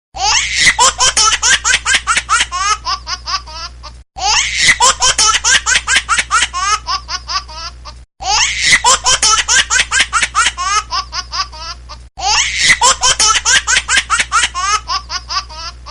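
Laughing ringtone: one clip of hearty laughter repeated four times, each about four seconds long. Each starts loud with quick bursts of laughter that slow and trail off, then cuts off sharply before the clip starts over.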